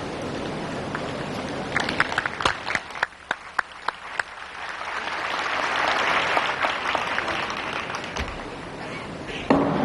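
Audience applause in a hall: a few separate claps, then a swell of applause about halfway through that fades away, and a single sharp knock near the end.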